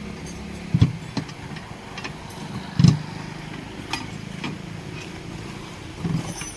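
An engine idling steadily, with several short sharp knocks over it, the loudest about three seconds in.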